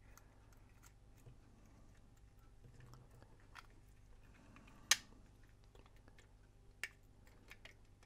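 Quiet handling of a small plastic camcorder and tiny tools, with a few sharp clicks: the loudest about five seconds in, another near seven seconds, and some smaller ticks after it.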